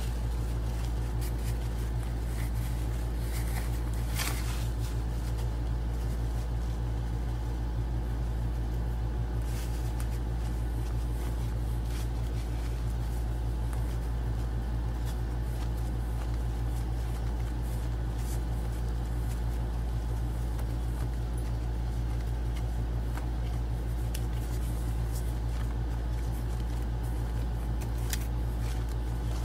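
Steady low background hum, with a few faint rustles and taps of hands pressing a glue-soaked paper towel onto cardboard.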